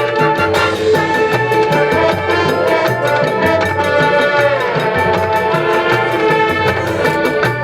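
High school marching band playing: sustained wind chords over a steady, quick percussion beat, with the held chord sliding down in pitch about four and a half seconds in.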